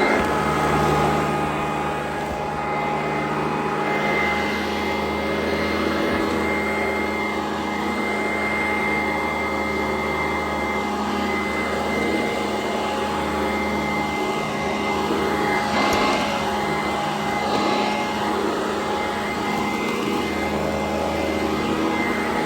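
Sanitaire SC899 upright bag vacuum running steadily while vacuuming, its motor giving a constant whine over a rush of air, with small swells in loudness as it is pushed and pulled.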